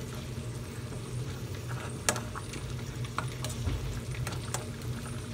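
Metal ladle clinking in a stainless steel pot of simmering braised pork leg as the liquid is spooned over the meat: a scatter of short sharp clicks, the loudest about two seconds in, over a steady low hum.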